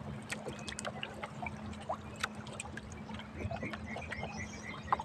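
Seawater trickling and dripping off a monofilament fishing net as it is hauled hand over hand out of the sea, with many small scattered drips and splashes.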